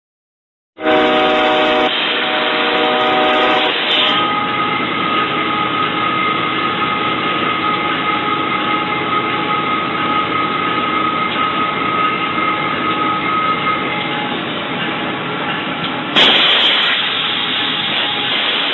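Locomotive horn blowing, heard from the cab over the steady running noise of the train. The sound is dull, with no treble. The horn is strongest in the first few seconds, and the noise suddenly gets louder about sixteen seconds in.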